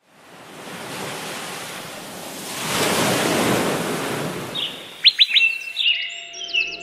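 Ocean surf: a wave swells and washes in, loudest about three seconds in, then fades away. From about four and a half seconds in, small birds chirp with quick whistled notes and sharp falling sweeps.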